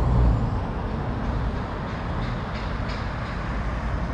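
Road traffic on a multi-lane city street heard from above: a loud low rumble from a passing vehicle right at the start, easing within the first half second into a steady traffic hum.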